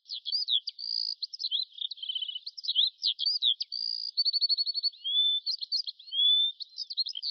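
A songbird singing one long, rapid, varied song of high whistled slurs, quick trills and chattering notes. It starts suddenly.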